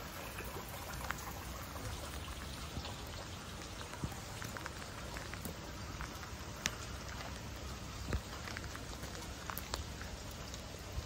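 Steady rain on wet cobblestones and stone, a soft even hiss with scattered sharp drop clicks.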